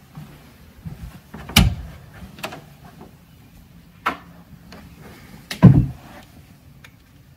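A house door being opened, with a series of clicks and knocks from the latch and handling; the heaviest thump comes near the end.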